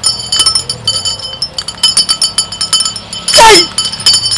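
Small metal bell shaken in quick, ringing jingling clinks. A loud, short vocal cry with a bending pitch comes about three and a half seconds in.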